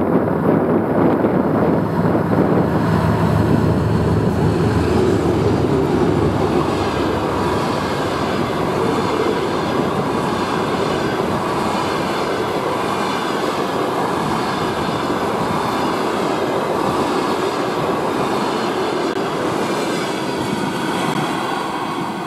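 A 2TE10UT twin-section diesel locomotive with a passenger train passes at speed. Its diesel engines are heavy and low at first. Then the coaches roll by with wheels clattering over the rail joints and a wavering high-pitched whine, and the sound begins to fade near the end as the train draws away.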